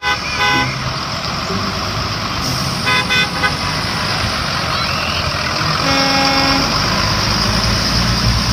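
School buses driving on a wet street, their engines and tyres making a steady noise, with horns tooted several times: short toots about half a second in and around three seconds, and a lower, longer honk at about six seconds.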